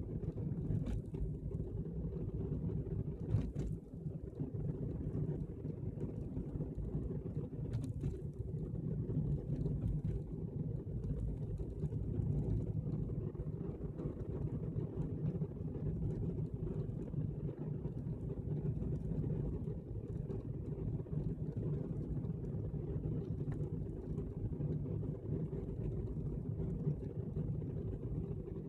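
Steady low road and engine rumble of a car being driven, heard from inside the car.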